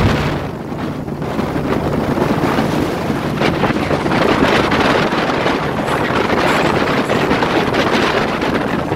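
Heavy wind buffeting on the microphone of a moving motorcycle, over the steady running of touring motorcycle engines in a group ride.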